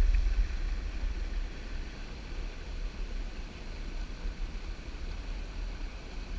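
Wind buffeting the microphone in a low, uneven rumble, over a steady rush of water pouring over a low dam spillway.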